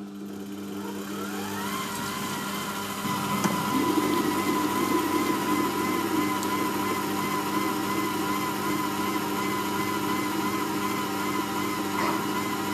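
Lidl SilverCrest Monsieur Cuisine (SKMH 1100) food processor's blade motor spinning up over the first two seconds at speed 4, then running with a steady whine while blending cooked potatoes and cream into purée. The churning of the mash gets louder about three and a half seconds in.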